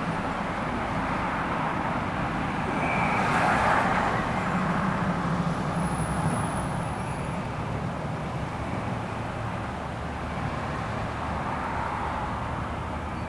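Steady road traffic noise, swelling as a vehicle passes about three to four seconds in.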